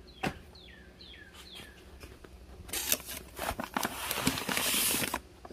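Firework packaging being handled: rustling and crinkling with scattered clicks, loudest in the second half. In the first two seconds a bird chirps four or five short falling notes in the background.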